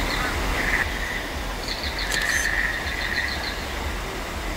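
Outdoor ambience of chirping and trilling creature calls. Quick runs of short high chirps repeat several times over a steady low rumble.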